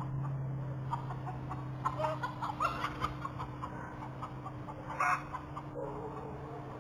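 Chickens clucking in a run of short calls, with one loud squawk about five seconds in, alarm calls with a red fox prowling at the run. A steady low electrical hum runs underneath.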